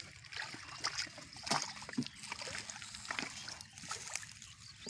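Muddy shallow water splashing and sloshing as it is stirred during hand fishing, with a few short, sharp splashes, the clearest about one and a half and two seconds in.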